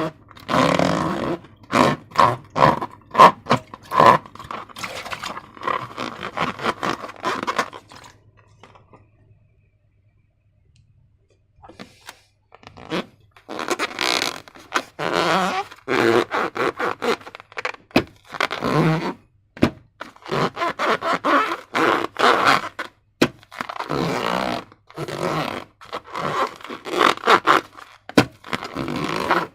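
Slime being handled and worked with transparent balloons: irregular short scraping and handling strokes, stopping for a few seconds about a third of the way in, then going on.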